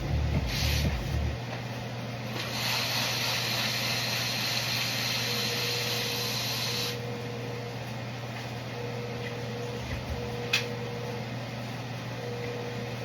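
A steady hiss lasting about four and a half seconds over a steady low hum, followed by a single sharp click near the end.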